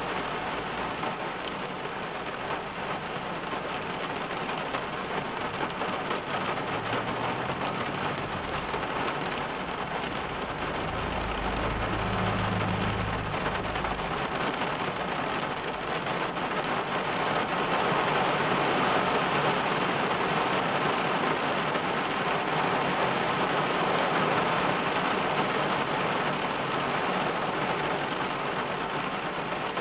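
Steady rain drumming on a car's roof and windscreen, heard from inside the car, getting somewhat heavier about halfway through. A low rumble comes in about seven seconds in and fades by fourteen seconds.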